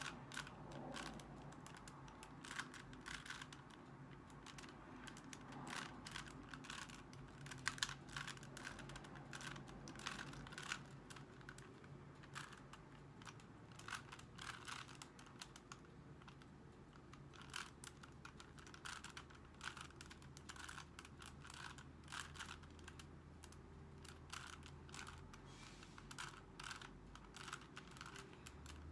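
Rubik's Cube being turned quickly in the hands during a solve: a fast, irregular run of light plastic clicks as the layers snap round.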